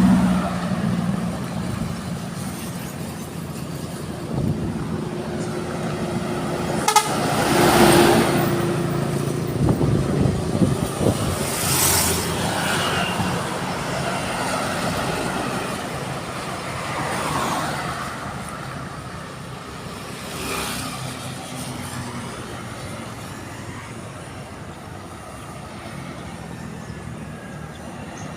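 Trucks driving past one after another, with a multi-tone telolet horn sounding at the start and again about eight seconds in, the loudest moment. Later passes are engine and tyre noise only, growing quieter toward the end.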